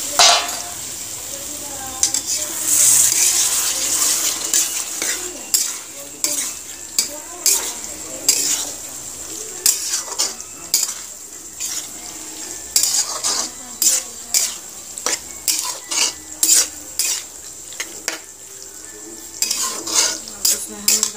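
Metal spoon stirring boiled chickpeas through a frying masala gravy in a kadai, with repeated clinks and scrapes against the pan over a steady sizzle. A loud clatter right at the start.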